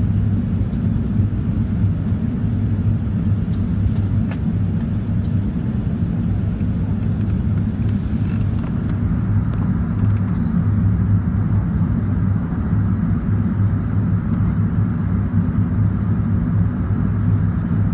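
Steady low rumble of jet engine and airflow noise inside the cabin of an Airbus A380 climbing after takeoff, heard from a window seat.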